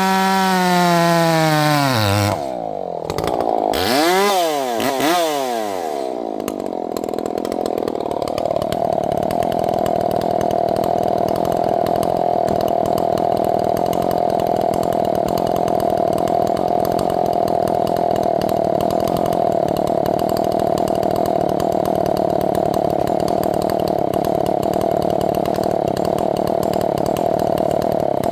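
Two-stroke gas chainsaw cutting firewood rounds. Its engine note wavers under load and drops about two seconds in, rises and falls a few times, then from about eight seconds holds a steady high pitch over a hiss, as in a long steady cut.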